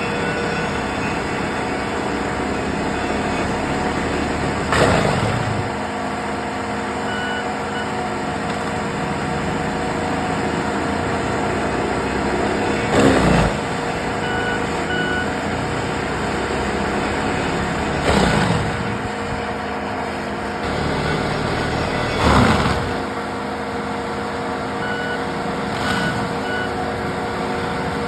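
Skid steer with a forestry mulcher head running at full speed, the mulcher drum grinding into a stump. Four times the sound surges louder and its pitch drops as the drum bites into the wood. The machine's reversing alarm beeps briefly three times.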